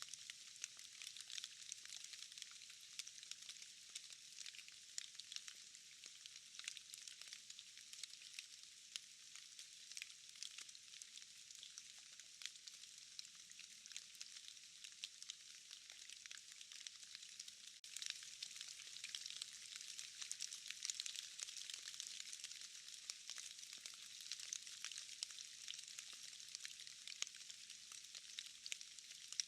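Rain falling through forest, dripping from trees and moss: a faint, thick hiss made of countless small drop ticks, with no low rumble. It grows a little louder just past halfway.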